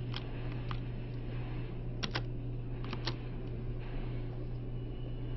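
About six separate computer keyboard key clicks, two of them in close pairs about two and three seconds in, over a steady low hum.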